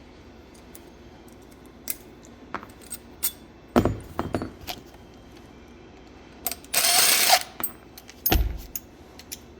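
Metal clicks, clinks and knocks from handling a brass autoclave safety pressure valve and tools on a workbench, with a heavy thump about four seconds in and another near the end. A brief loud rasping, hissing noise lasts about half a second, a little before seven seconds in.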